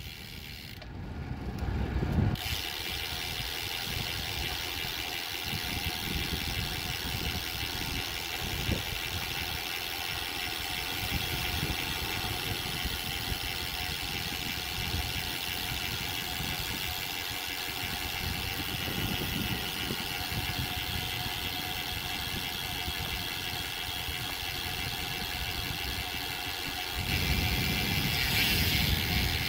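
Road bike being ridden: a steady rush of wind and tyre noise with the ticking of the freewheel's ratchet, growing louder a little before the end.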